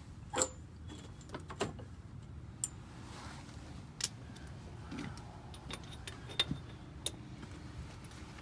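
Scattered metal clinks and knocks, several with a short high ring, as bolts and hand tools are handled while fitting a car's rear upper control arm.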